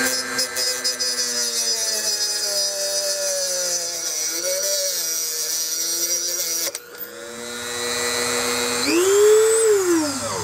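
Dremel rotary tool with a cut-off wheel running, its motor whine sagging and wavering in pitch as the wheel is pressed against a small metal RC car drive shaft to cut it in half. Near the end the whine rises sharply in pitch and then falls away.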